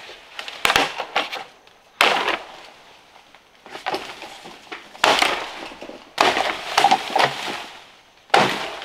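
Sharp wooden knocks and cracks, about five of them a second or two apart, each trailing off briefly.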